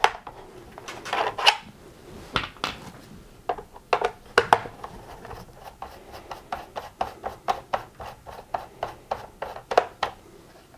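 Hand screwdriver turning out small screws from the plastic roller end caps of a Gtech AirRam vacuum: a run of short clicks and scrapes, spaced unevenly at first and coming about two or three a second in the second half.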